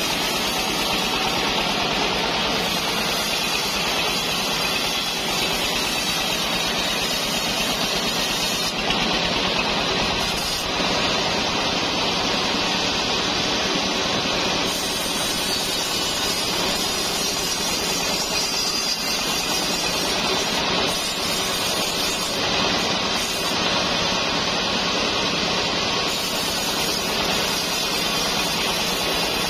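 Band sawmill running steadily while sawing trembesi (rain tree) timber into rafters, a loud, unbroken machine noise.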